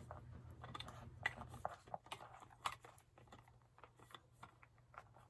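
Faint, scattered light clicks and taps of plastic parts as the O-Cedar EasyWring spin mop's microfiber head is fitted into place, over a steady low hum.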